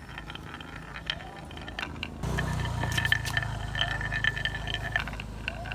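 A marble rolling and clicking through the wavy groove of a wooden HABA marble run slope. About two seconds in the sound gets louder, with a steady ringing tone over a low rumble.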